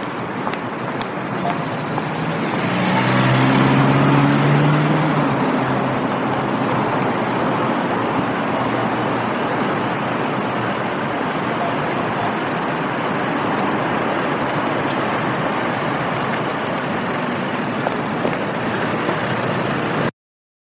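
Close city street traffic: a steady wash of passing cars and tyre noise. About three seconds in, one vehicle's engine passes close and grows louder for a couple of seconds. The sound cuts off suddenly near the end.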